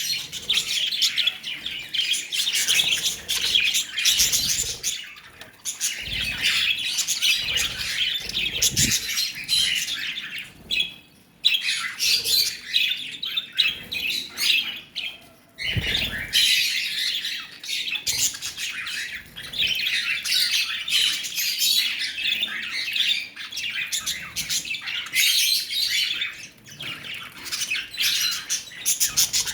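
Several lovebirds chirping and chattering rapidly, a dense high-pitched twitter broken by a few brief pauses, with some low thuds underneath.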